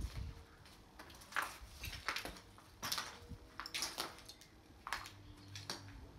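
Footsteps crunching on broken glass and debris underfoot, about ten uneven steps.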